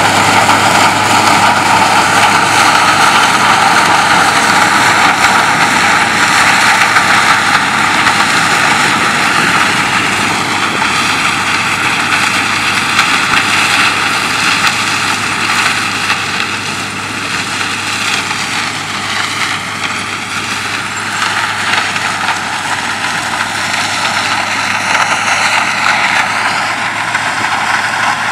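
Sugarcane harvester at work, chopping cane and blowing it into a truck running alongside: the loud, steady mechanical noise of the harvester and truck engines, with a constant whine over it. The noise drops a little past the middle as the machines move off.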